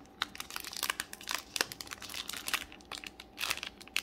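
Foil wrapper of an Upper Deck hockey card pack crinkling with irregular crackles as it is handled and slit open along its flap with a thin blade.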